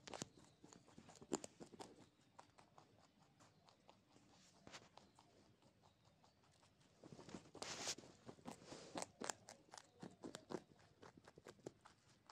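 Rabbit crunching a carrot in small, quick, faint bites and chews, with a quieter lull in the middle and a busier run of crunching from about seven seconds in.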